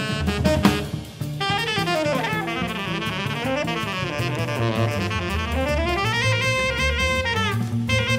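Jazz trio of tenor saxophone, bass and drums. The tenor saxophone breaks off briefly about a second in, then plays long runs that sweep down and back up, over stepping bass notes and steady drum and cymbal strokes.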